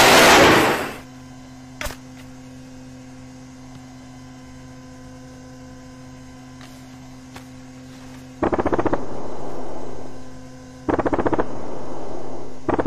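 Two loud, sudden crackling blasts, each lasting about two seconds and the second following about two and a half seconds after the first, over a faint steady hum; a loud noise dies away in the first second.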